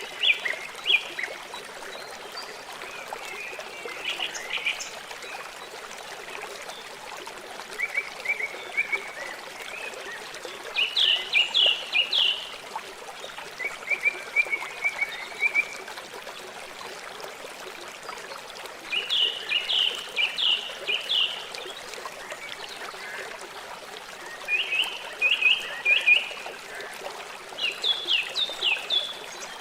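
River water flowing steadily, with short bursts of rapid chirping calls from a small animal every few seconds, each a quick run of four to six notes.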